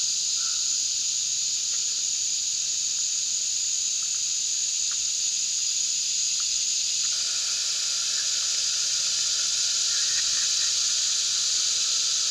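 A steady high-pitched insect chorus buzzing in summer woodland. About seven seconds in, a lower steady rushing hiss joins it: a Jetboil backpacking stove's gas burner running.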